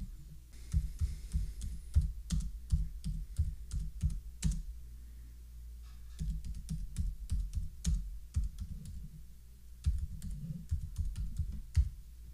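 Typing on a computer keyboard: two runs of quick keystrokes with a pause of about a second and a half between them, as a password is typed, rejected and typed again.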